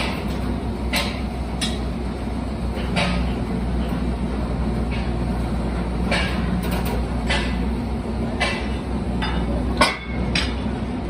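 Steady low machine hum of a workshop hydraulic press running while its ram bears down on a bent excavator cylinder rod to straighten it. Sharp metal clinks and knocks come at irregular moments, the loudest near the end.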